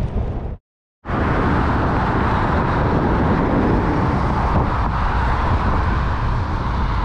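Steady road traffic on a city street, cars and vans passing close by, with wind on the microphone from riding a bicycle alongside them. Just under a second in, the sound drops out completely for about half a second.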